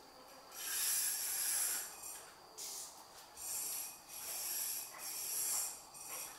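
Fishing reel whirring in repeated bursts of about a second each while a hooked fish is played on a bent rod.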